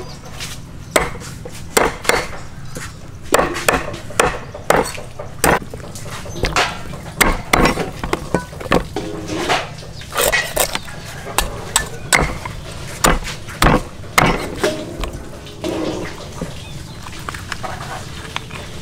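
Cleaver chopping through raw chicken on a round wooden chopping block: sharp, irregular chops, about one or two a second.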